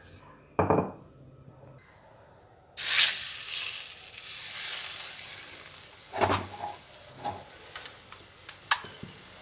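A water-moistened roti is laid on a hot tawa and starts sizzling suddenly about three seconds in, a hiss that slowly dies away. Several short knocks follow as the dough is pressed down, and there is a single thump near the start.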